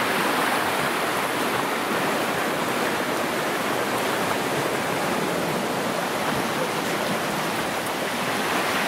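The Olkha river flowing steadily under a footbridge, a constant rush of running water.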